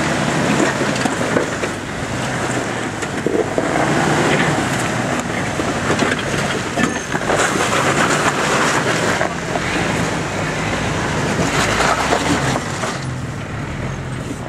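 Jeep Wrangler TJ's engine running with a steady low note as it crawls over rock, with its tyres crunching and grinding on stone and gravel.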